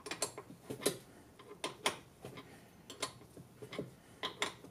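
Light metallic clicks at uneven spacing, three or four a second, from a hand tool tightening the nut on a battery terminal.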